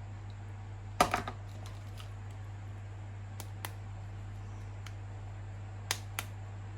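A few light clicks and taps, in small clusters, from hands handling a plastic toy action figure. A steady low hum runs underneath.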